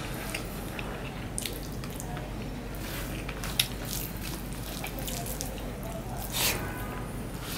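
Fingers mixing rice and curry on a banana leaf, making scattered small wet squishing clicks. About six seconds in, a louder wet smack as a handful goes into the mouth.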